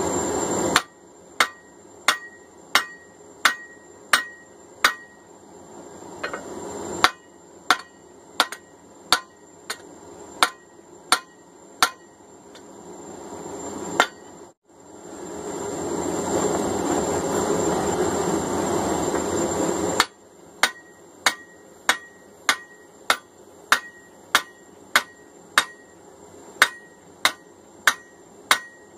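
Hand hammer driving a drift through the punched eye of a hot steel hammer head on the anvil: steady ringing blows about one and a half a second, in runs. Midway the blows stop for several seconds and a steady rushing noise takes over.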